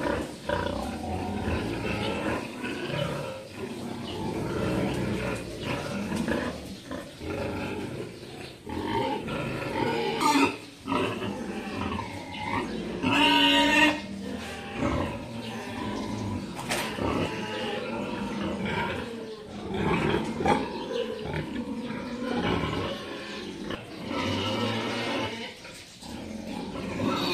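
Many crated sows grunting throughout. About halfway through, one louder, high-pitched call lasts about a second.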